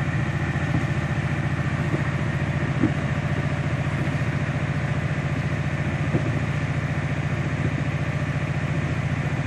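An engine idling steadily with an even low chugging pulse, and a few light knocks over it.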